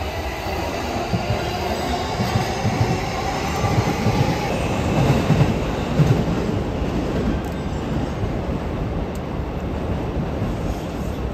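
JR electric commuter trains (Keihin-Tohoku and Yamanote Line) running past on the tracks with a steady rumble. A thin wheel squeal fades out about four seconds in, and the wheels knock unevenly from about one to six seconds in.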